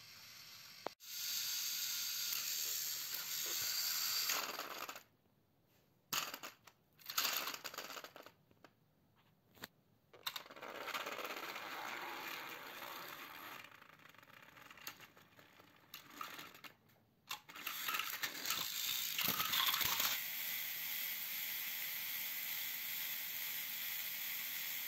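Battery-powered plastic toy trains whirring and rattling along plastic track, with sharp clattering knocks as they collide and tumble onto the floor.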